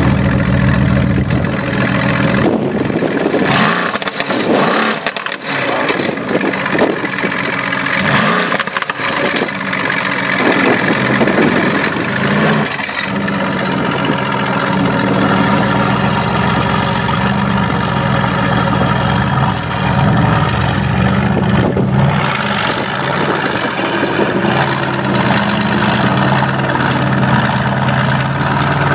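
Mercedes-AMG GT's V8 engine, revving unevenly and blipping for the first dozen seconds or so, then settling into a steady, loud idle.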